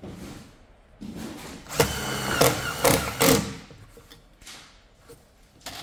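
A cordless impact driver drives a screw through a metal solar-panel mounting bracket into a wooden frame. It runs for about two and a half seconds, starting about a second in, with the motor whining and several surges as the screw is driven home.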